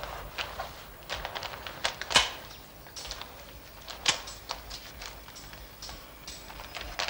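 Paper envelope being opened and a letter drawn out: short crackles and rustles of paper, loudest about two seconds in and again about four seconds in.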